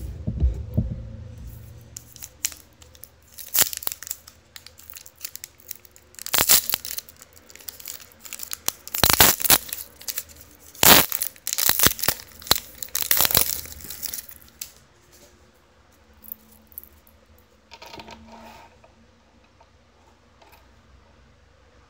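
A trading-card pack's wrapper being torn open and crinkled by hand. There is a run of sharp tearing and crackling through the middle, then quieter rustling as the cards are handled.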